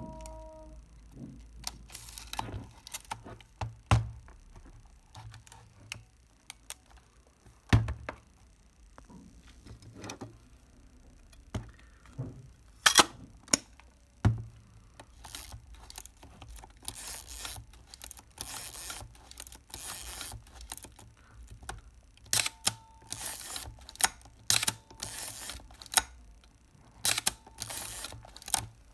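Irregular metallic clicks, clacks and knocks from a Plaubel Makina 67 folding medium-format camera's front standard, bellows and scissor struts being handled and worked by hand, with a few longer scraping or rubbing passes in the middle.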